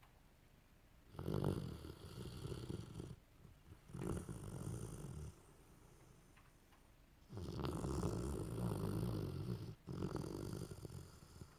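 A sleeping dog snoring: four rasping snores in two pairs, with a pause of about two seconds between the pairs.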